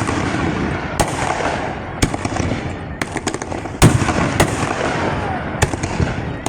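Aerial fireworks display: sharp bangs of shells bursting roughly once a second, the loudest near four seconds in, with crackling and fizzing between them.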